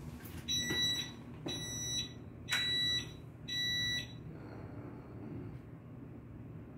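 An electronic beeper sounds four short high-pitched beeps, about one a second, then stops.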